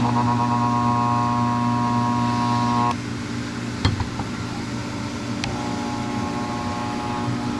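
Magnaflux electromagnetic yoke buzzing with a steady electrical hum while switched on to magnetize a cast-iron cylinder head for crack testing. The buzz cuts off sharply about three seconds in and comes on again about halfway through. Faint clicks come in between, over a steady low shop hum.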